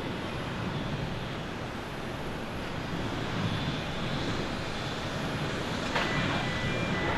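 Skymark Airlines Boeing 737-800's twin jet engines at takeoff thrust during the takeoff roll and lift-off, a steady rushing noise that grows a little louder toward the end. A brief sharp click sounds about six seconds in.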